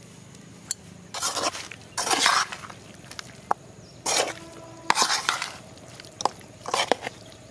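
A perforated metal ladle scrapes and clinks against a metal kadai as pieces of chicken fry are stirred and turned over. It comes in about five short scraping strokes, with a few sharp clinks between them.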